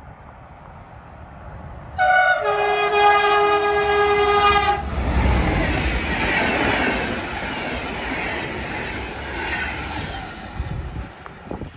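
Horn of a Snälltåget class 193 (Siemens Vectron) electric locomotive sounding one loud blast of nearly three seconds. The train then rushes past at speed, its coaches clattering over the rails.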